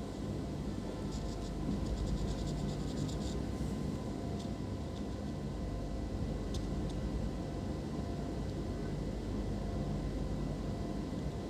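Steady low background hum, with a quick run of faint ticks between about one and three seconds in and a few single light clicks later.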